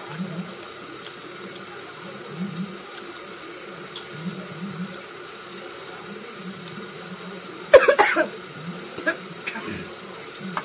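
A person coughing: a short, loud cluster of coughs about eight seconds in, over low room noise.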